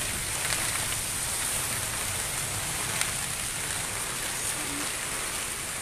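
Heavy rain pouring steadily onto a waterlogged road, a dense even hiss, with one sharp tap about three seconds in.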